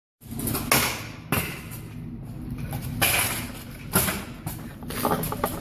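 Freestyle stunt scooter wheels rolling on a concrete floor with a steady rumble, broken by about four sharp clacks of the scooter hitting the ground.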